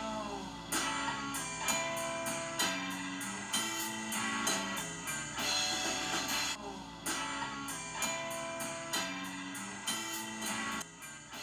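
Music: guitar with a steady drum beat.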